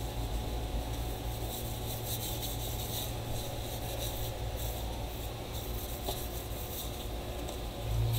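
Tissue rubbing and wiping across the back of a phone's LCD panel, a soft scratchy rubbing, as oil is cleaned off the panel.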